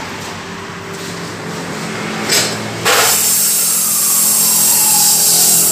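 Abrasive cut-off saw running, then about three seconds in the disc bites into steel and a loud, harsh grinding hiss takes over and holds steady.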